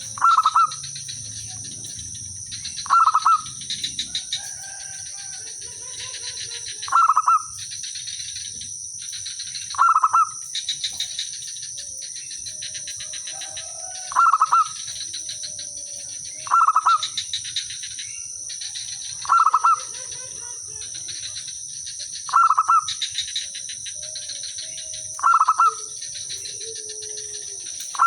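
Zebra dove (perkutut) singing its cooing song over and over, about every three seconds, each phrase a loud coo followed by a quick run of short notes. Fainter calls sit between the phrases, and a steady high insect buzz runs underneath.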